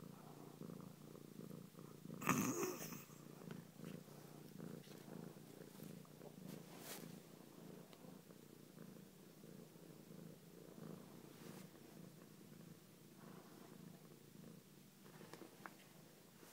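Long-haired domestic cat purring steadily, with a short loud noise about two seconds in.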